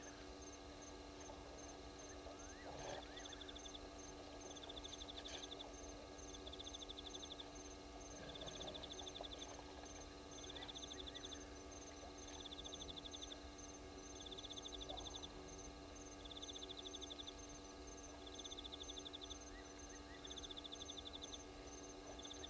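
Night insects calling at a waterhole: one trills in short bursts about every second and a half, while another chirps steadily at a higher pitch throughout. A faint steady electrical hum lies underneath.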